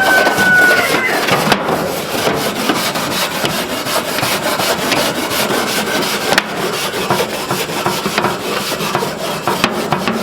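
Barbecue grill grate being scraped clean of old caked-on residue, with rapid, continuous back-and-forth rasping strokes. A brief squeal at the very start.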